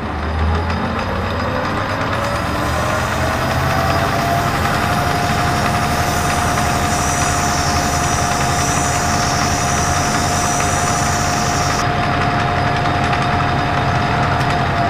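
Metal lathe motor spinning up, running at a steady whine, then winding down near the end. For most of the run a hiss is heard over the whine, as the turned steel shaft is polished with abrasive while it spins.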